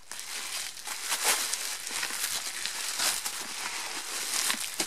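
Bubble wrap rustling and crinkling as it is handled and pulled off a boxed item, a steady run of small crackles.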